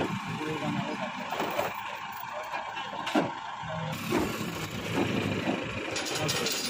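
Tow truck's engine running while its crane is rigged to lift a wrecked car, with a couple of sharp knocks.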